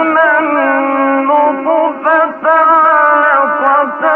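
A man reciting the Quran in a melodic, chanted style, holding long ornamented notes that waver and bend in pitch, with a short pause about two seconds in.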